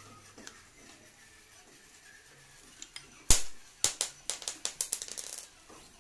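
A motorcycle clutch outer housing with its driven gear clanking and rattling as it is worked on the transmission shaft: one sharp metallic clank about halfway through, then a quick run of rattling clicks lasting about a second.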